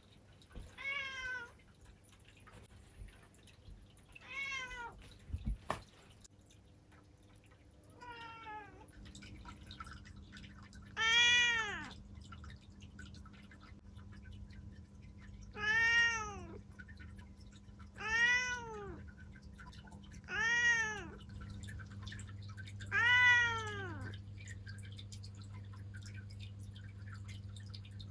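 Domestic cat meowing repeatedly, about eight separate meows a few seconds apart, each rising then falling in pitch; the meows from about eleven seconds in are louder. A single short knock comes before the middle of the run, and a steady low hum sets in.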